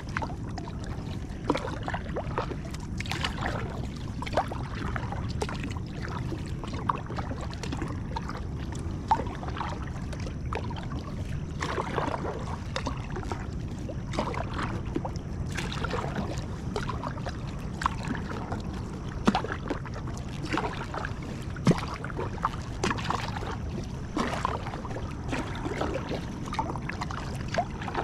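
Water lapping and splashing around an inflatable kayak, with small irregular knocks and ticks over a steady low hum.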